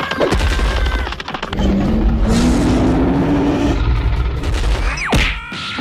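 Loud action sound effects over music: a heavy low rumble through the middle, and a steeply falling whistle near the end.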